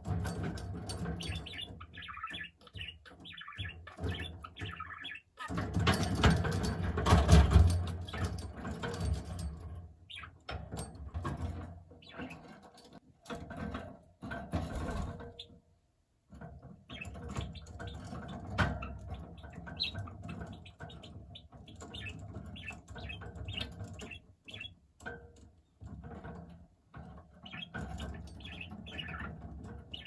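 Budgerigar chattering and warbling, mixed with many small clicks as its beak works at a hanging bead-and-bell toy. A louder, noisier stretch of rustling comes about six to ten seconds in.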